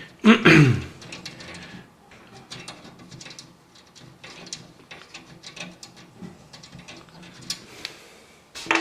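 Light, scattered clicks and scratches of small computer parts being handled on the workbench. Near the start there is a brief, louder sound that falls in pitch, like a murmured 'ooh'.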